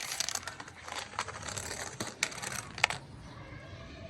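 Irregular sharp clicks and short rattling knocks of small hard objects, the strongest about two seconds in and again shortly before the end.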